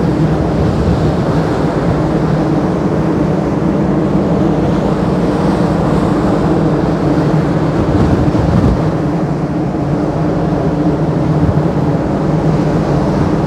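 Strong wind buffeting a phone's microphone on a ferry's open deck, over a steady low hum from the ship.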